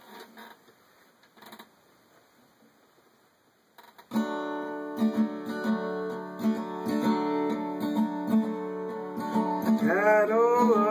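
Acoustic guitar strumming a country-western accompaniment, starting about four seconds in after a few faint clicks. Near the end a voice comes in over it with long notes that slide up and down.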